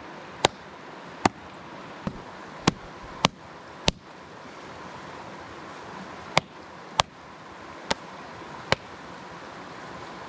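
Creek water running steadily, broken by about ten sharp slaps at uneven intervals as wet leather moccasins are slapped together over the water, with a pause of a couple of seconds midway.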